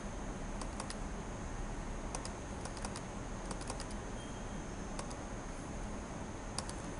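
Computer keyboard keys and mouse clicks in short scattered clusters of a few clicks each, over a steady faint hiss.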